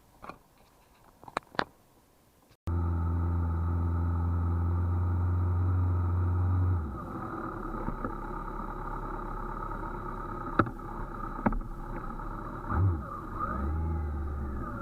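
A few clicks over quiet, then a vehicle engine cuts in abruptly, running steadily with a low hum. After a few seconds it drops in level and turns uneven, with two sharp clicks and rising pitch changes near the end, as if the engine is revved or pulls away.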